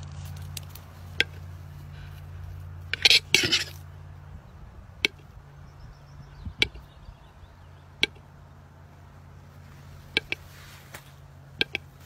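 Male western capercaillie's display song: sharp, dry clicks spaced one to two seconds apart, with a louder cluster of clicks and a short scratchy rasp about three seconds in.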